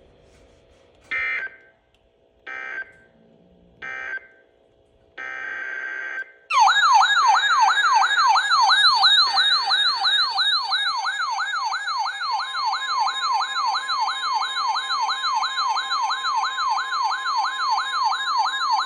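Emergency Alert System signalling on NOAA Weather Radio. Four short bursts of buzzy digital SAME data tones come first. About six seconds in, a loud electronic alert tone starts, whooping up and down about two and a half times a second like a siren, and a steady single-pitch attention tone joins it about halfway through.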